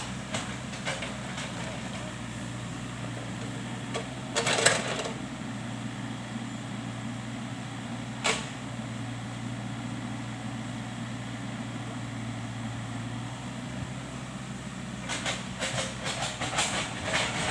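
Komatsu PC78US-8 mini crawler excavator's diesel engine running steadily, with sharp knocks and clanks from the machine working: one cluster about a quarter of the way in, a single knock near the middle, and a run of clanks near the end.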